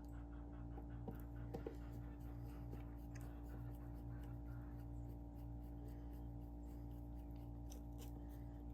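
Faint small metal clicks and ticks as a screw is worked into an Abu Garcia Ambassador 5000 baitcasting reel during reassembly, a few louder clicks about a second in, over a steady low hum.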